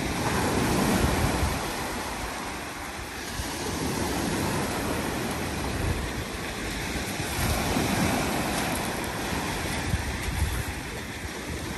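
Sea surf breaking and washing up a pebbly sand beach, swelling and easing every few seconds, with wind buffeting the microphone.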